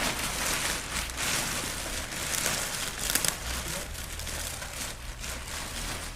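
Plastic packing sheet crinkling and crackling as it is handled and tucked in, starting suddenly and loudest about two to three seconds in.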